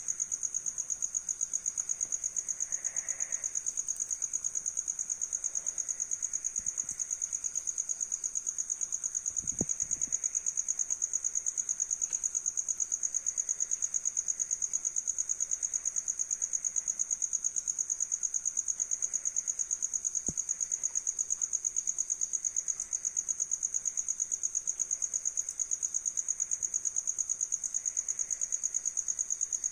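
Crickets chirping in a steady, high, fast-pulsing trill. A low thump about ten seconds in.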